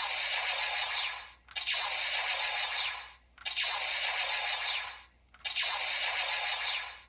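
CSM Delta Mover toy blaster playing its electronic firing sound effect through its built-in speaker, four shots in a row. Each shot is a hissing blast with falling zaps, lasting about a second and a half.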